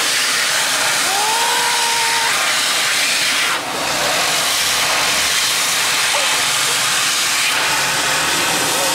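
High-power electric hand dryer blowing at full power: a loud, steady rush of air that dips briefly about three and a half seconds in.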